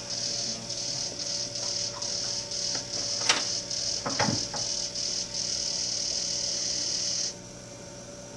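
Small wheeled robot's drive motors whirring in short pulses, about two a second, as it inches forward. They then run steadily and cut off suddenly about seven seconds in. A sharp click comes about three seconds in, over a steady low hum.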